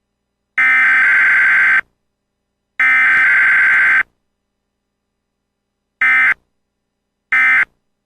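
Emergency Alert System SAME digital data bursts, the buzzy two-tone code that opens and closes an alert. Two long header bursts of about a second each come a second apart, then after a short pause two short end-of-message bursts.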